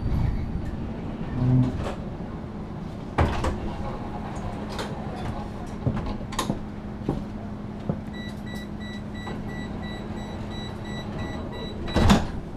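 Inside a standing tram: a steady low hum and scattered knocks. Near the end a door warning beeps in a quick even series, about three beeps a second for nearly four seconds. It ends in a loud thump as the sliding doors shut.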